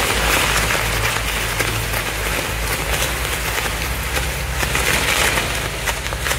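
Spinning ground-firework wheels burning, giving a steady hiss thick with fine crackling.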